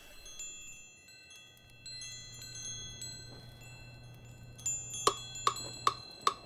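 Wind chimes ringing, with many high tinkling tones overlapping and fading slowly. About five seconds in, a steady tick starts, about two and a half a second.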